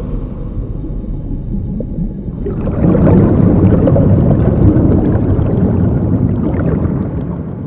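A low, noisy drone with no clear pitch that swells about two and a half seconds in and fades away near the end.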